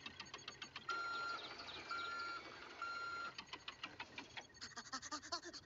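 Rapid clicking of buttons being pressed on a handheld electronic gadget, with three short, equal beeps about a second apart early on; the clicks come thicker near the end.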